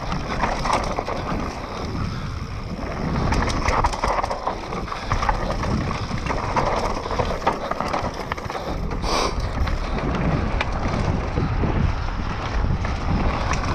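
Mountain bike descending a dirt trail at speed: steady wind rush on the microphone over the tyres on dirt and the bike rattling across bumps, with a brief hiss about nine seconds in.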